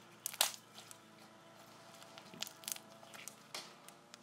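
Homemade slime, still slightly sticky, being stretched and squished by hand, giving irregular sticky pops and crackles; the loudest pop comes about half a second in.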